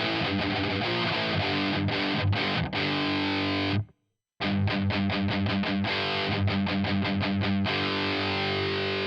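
Distorted electric guitar played through the Audiority L12X plugin, a Marshall JCM-style solid-state amp model with its TS boost engaged. A riff breaks off about four seconds in, and after a short gap it resumes with a quick run of short repeated notes, ending on a held chord.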